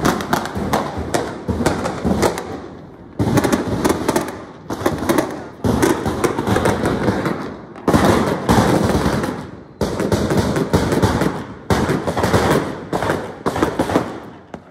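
Fireworks going off in rapid volleys of bangs and crackles, a new volley starting suddenly every second or two and fading before the next.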